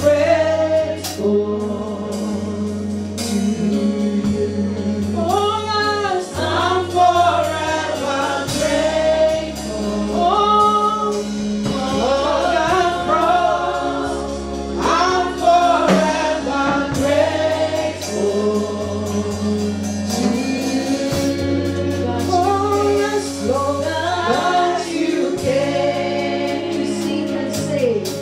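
Voices singing a gospel worship song together over sustained instrumental chords.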